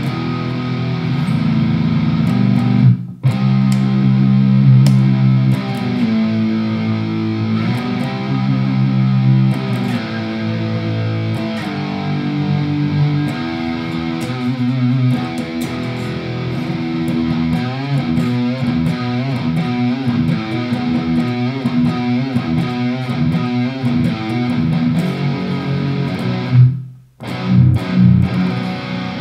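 Squier Sonic Mustang HH electric guitar, brand new out of the box, played: ringing chords for the first dozen seconds, then quicker single-note runs. The playing stops briefly about three seconds in and again near the end.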